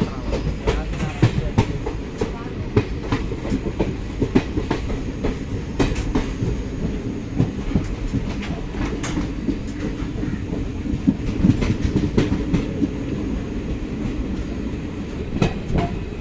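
Express passenger train coach running on the rails, heard at an open door: a steady rumble with the wheels clattering irregularly over rail joints and points.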